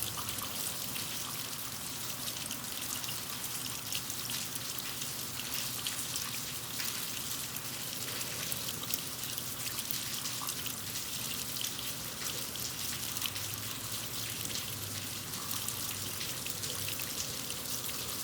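Steady rain falling on concrete: a dense hiss of many small drop splashes, with water running in a gutter.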